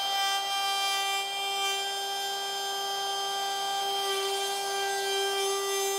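DeWalt compact router running at full speed with a steady high whine, routing out a hinge mortise in a wooden door edge inside a hinge template.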